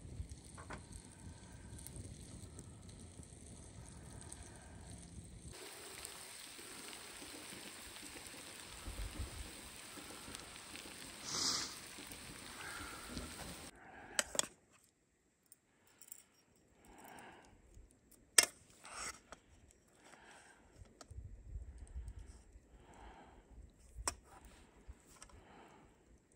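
Quiet camp-cooking sounds: a faint, steady hiss of beef frying in a pan over the fire for roughly the first half. It then drops to near quiet with a few sharp metallic clicks and clinks of cookware.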